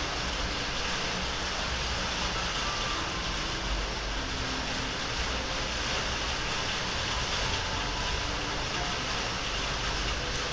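Steady background noise with a low rumble, even throughout.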